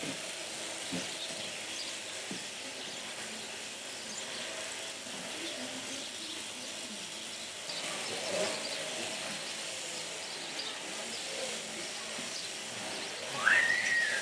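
Sheep-shearing handpiece with a snow comb cutting through the fleece along the sheep's side: a steady hiss of comb and cutter. Near the end a brief high call rises and holds for a moment.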